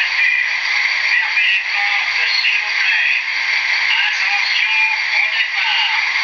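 Sound decoder of an HO-scale REE Models BB 67000 diesel locomotive playing the engine idling while the model stands still. It comes through the model's tiny speaker, steady and thin with no low end.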